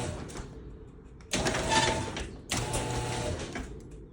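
Genie Intellicode garage door opener's motor running in short spurts: it stops about half a second in, starts again about a second later and runs about two seconds before cutting out. The door halts partway each time, a fault the owner cured by replacing a safety sensor.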